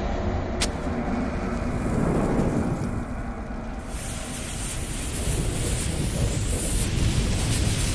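Intro fire sound effects: a steady low rumble, with a brighter hiss of flames and a sizzling fuse from about four seconds in, and a sharp click just under a second in.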